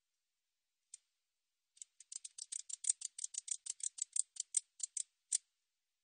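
Katydid (베짱이붙이) stridulating: a single tick about a second in, then a run of about twenty short, high-pitched ticks, about six a second, that stops shortly before the end.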